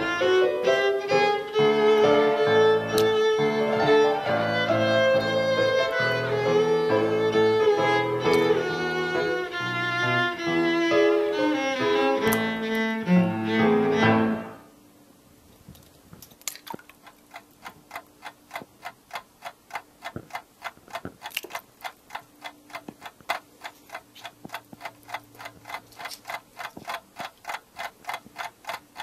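Bowed string music with violin and cello plays, then stops abruptly about halfway through. It is followed by a clock ticking steadily, several ticks a second and much quieter than the music.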